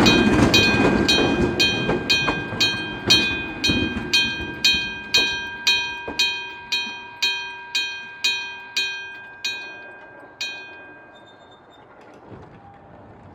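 Japanese level-crossing bell ringing its steady "kan-kan", about two strikes a second, while a train rumbles past. The train noise fades over the first few seconds, and the bell stops a little after ten seconds in.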